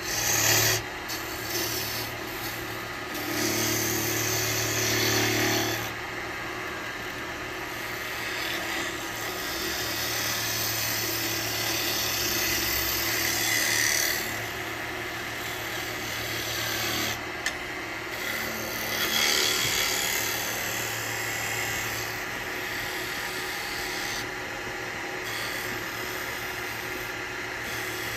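Wood lathe spinning an alder blank while a hand-held turning tool cuts it, a continuous scraping cut over the lathe's steady hum. The cut swells and eases several times as the tool is pushed along the curve.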